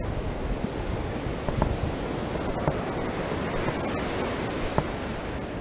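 Ocean surf washing onto a sandy beach: a steady rushing hiss, with a few faint knocks.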